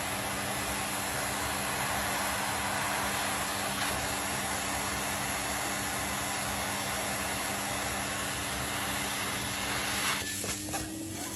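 Vacuum cleaner running steadily: a constant whooshing hiss of rushing air over a motor hum. It drops away about ten seconds in.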